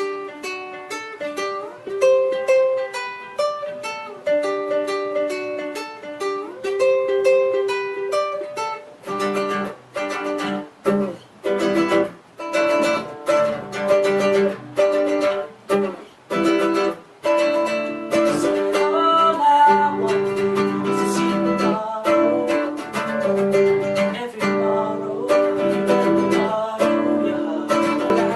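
Acoustic plucked-string accompaniment playing a song intro: single notes picked in a repeating melody, then from about nine seconds in, full chords strummed in a steady rhythm with short regular stops.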